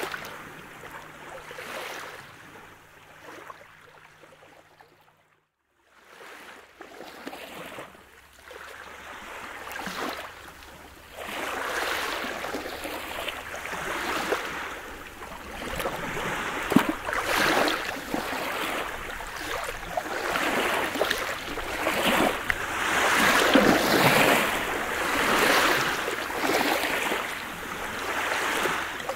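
Small sea waves washing in and out over a pebble beach, swelling in surges every couple of seconds. The sound drops out briefly about five seconds in, then comes back and grows louder.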